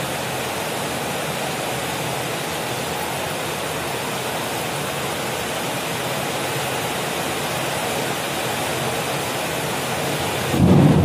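Steady rushing hiss, like a fan or recording noise, that does not rise or fall with the pouring, followed by a loud low sound in two parts near the end.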